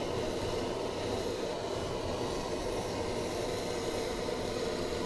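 Handheld gas blow torch burning steadily with a continuous rushing noise as its flame is played over cheese on toast.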